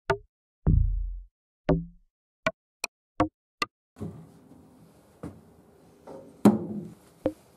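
A run of short knocks and plops, one of them a deeper thud, each falling into dead silence, in the manner of edited-in sound effects. About four seconds in, faint room noise starts and small plastic pigment bottles are set down one at a time on wooden floorboards, with the loudest knock about two and a half seconds later.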